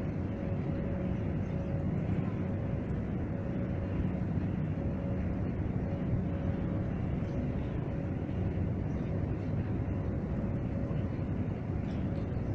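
Old Niederfinow boat lift moving its steel trough: a steady mechanical rumble with a faint hum from the drive machinery.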